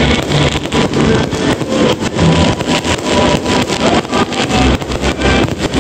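Stadium fireworks display going off: a dense, continuous barrage of bangs and crackles, many bursts a second.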